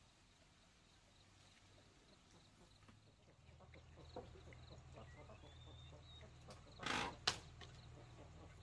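Quiet outdoor farmyard ambience with a faint steady hum, scattered light ticks and a short high bird chirp. About seven seconds in comes a brief scuff followed by a sharp knock: footsteps on a woven bamboo floor.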